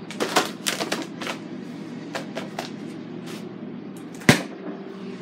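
Scattered clicks and knocks of items being handled in a kitchen, with one sharp thump about four seconds in, over a steady low hum.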